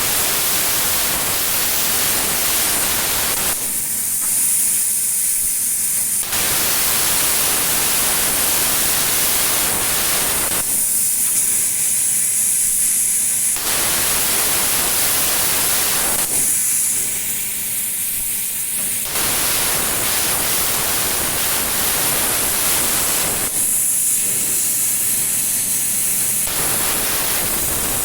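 CNC plasma cutter cutting metal: a loud, steady hiss from the plasma torch. Four times the hiss thins for about three seconds to a high air hiss, then comes back full.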